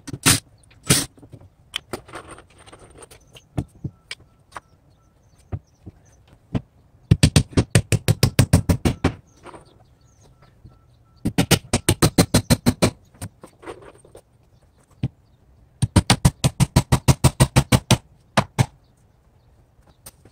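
Rapid sharp knocking, about ten strikes a second, in three runs of about two seconds each, after two single knocks in the first second.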